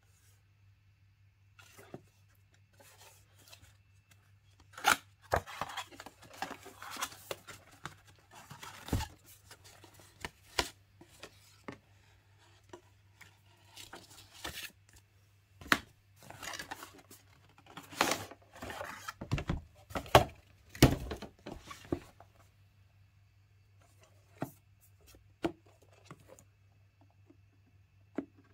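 Cardboard watch box and paper warranty booklet being handled and unfolded: irregular rustling, scraping and tapping of card and paper, in two busy stretches with quieter handling between.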